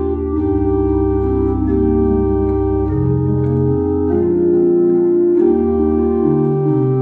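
Organ music: sustained chords held over bass notes, the harmony changing about every second.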